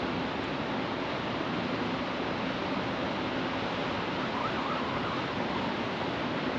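Steady rush of river water pouring below a lock and dam, an even noise that does not change.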